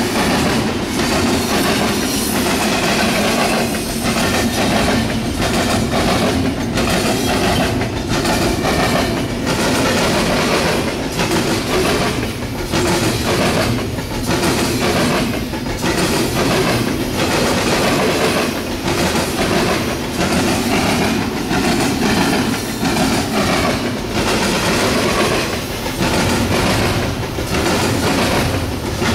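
Double-stack intermodal well cars rolling past with a continuous loud clatter of steel wheels, pounding rhythmically as they cross a railroad diamond crossing.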